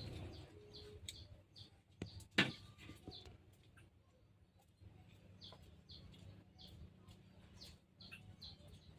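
Small birds chirping: short, high calls repeating about twice a second. A sharp knock about two and a half seconds in is the loudest sound.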